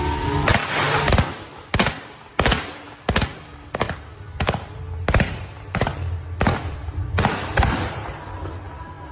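Fireworks firing a steady series of about a dozen sharp shots, roughly three every two seconds, like a multi-shot cake, over background music.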